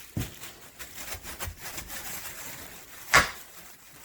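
Garlic and herb seasoning being shaken from a spice shaker onto a pork roast: a light patter of small taps, then one sharp knock about three seconds in.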